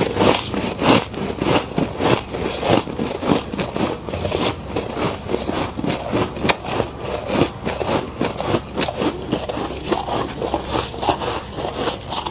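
Thick freezer frost being chewed: a steady run of crisp crunches, several a second, with a few sharper cracks along the way.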